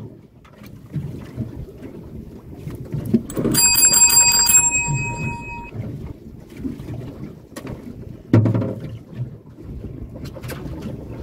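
A bright chiming bell sound effect rings for about two seconds, a few seconds in, over low wind and water noise on the microphone. A short thump follows about halfway through the second half.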